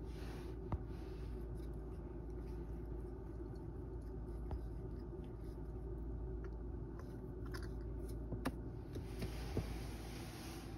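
Steady low room hum with a few faint, scattered clicks and small taps.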